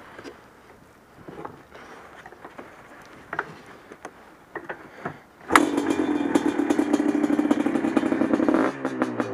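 A few light knocks, then the two-stroke single-cylinder engine of a Yamaha Blaster ATV fires and starts suddenly just past halfway and runs fast and steady. Near the end its speed and pitch drop.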